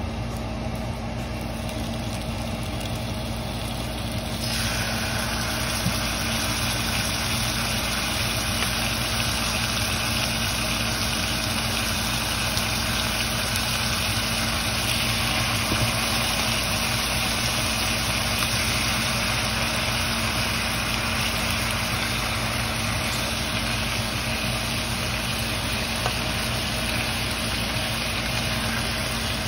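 Slices of marinated meat sizzling in a hot nonstick frying pan, a steady hiss that gets louder about four seconds in, over a steady low machine hum.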